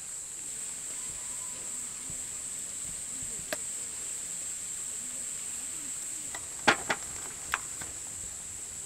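Steady high-pitched chorus of insects, crickets or similar, buzzing without a break. A few sharp clicks or taps cut across it, the loudest a quick double click about seven seconds in.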